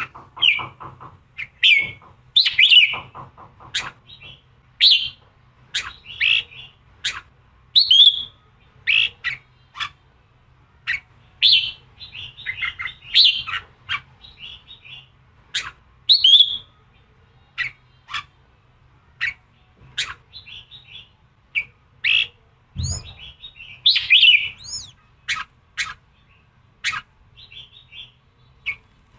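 Red-whiskered bulbul song: short, rapid chirping phrases and sharp calls, repeated every half second to a second, in the combative 'giọng kình' style played to rouse caged male bulbuls. One dull low thump comes about three-quarters of the way through.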